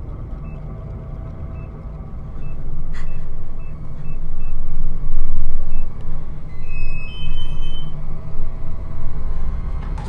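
A deep rumbling drone swells loud from about two seconds in. Over it come short, faint electronic beeps at irregular intervals, like a digital door lock's keypad being pressed, then a longer two-note electronic chime about seven seconds in.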